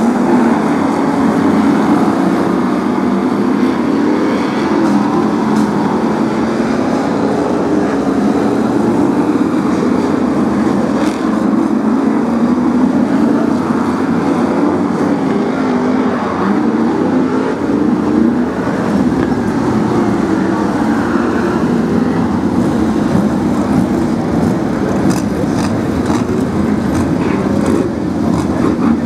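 Several V8 stock car engines running together at close range, their pitch wavering up and down.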